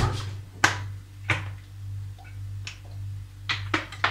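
A plastic bottle of cooking oil being handled, making a series of sharp, irregularly spaced clicks and crackles over a steady low hum.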